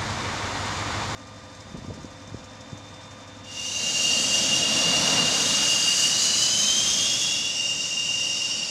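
A rushing noise cuts off abruptly about a second in. After a quieter stretch, a MiG-29 fighter's jet engine whine comes in loudly about three and a half seconds in: a high-pitched turbine whine that holds steady.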